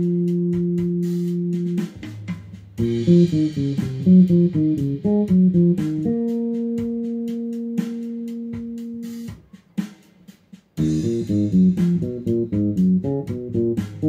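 Four-string electric bass of the Jazz Bass type playing a short minor-scale pattern in C minor, plucked fingerstyle. Long held notes alternate with quick runs of single notes stepping up and down, twice over, with a brief near-silent gap between them.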